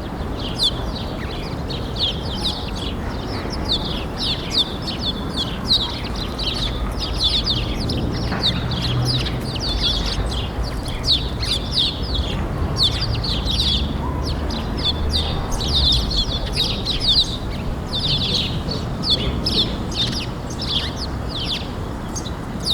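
A flock of small birds chirping continuously, a dense chatter of short, rapid high chirps overlapping one another, over a steady low background rumble.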